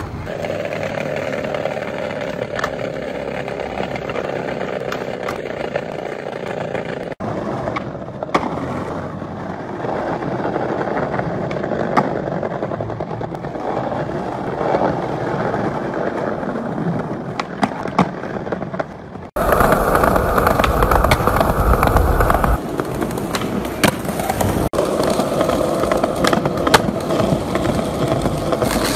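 Skateboard wheels rolling over pavement, with sharp clacks of the board striking the ground. The rolling sound changes abruptly several times as one street clip cuts to the next.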